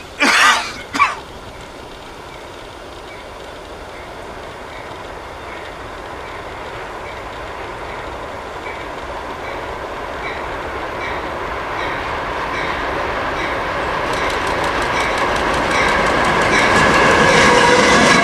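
Norfolk Southern freight train's diesel locomotives approaching and running past, the rumble growing steadily louder, with rhythmic wheel clicking over the rail building up near the end. Two short loud bursts of noise come about half a second and a second in.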